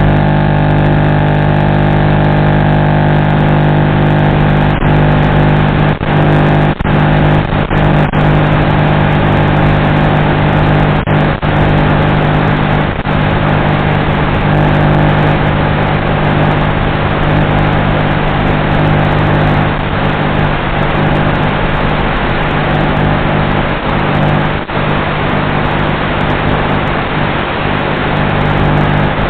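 Steady, loud drone of a Bixler 3 model airplane's electric motor and propeller with wind noise, picked up by the onboard FPV camera's microphone. It holds one pitch, with a few brief dropouts.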